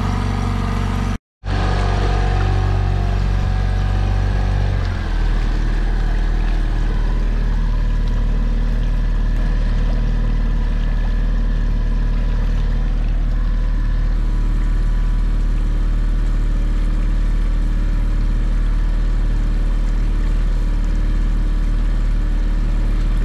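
A 2019 Mercury 9.9 hp four-stroke outboard kicker motor running steadily under way, over the splash of its wake. The sound cuts out completely for a moment about a second in. The engine note shifts slightly at about five seconds, then holds steady.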